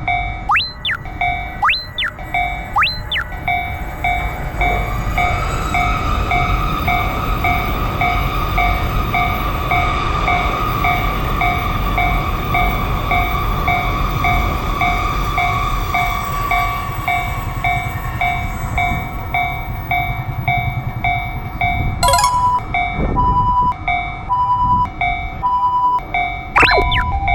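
Japanese level-crossing alarm bell ringing its steady, repeated "kan-kan" tone, while a train rumbles past through most of it. About three quarters of the way in, after a click, the ringing changes to a higher two-note alternation.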